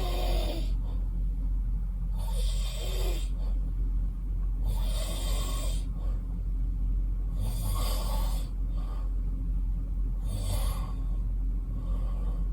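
A man snoring in deep sleep, with a loud rasping breath about every two and a half seconds, over a steady low hum.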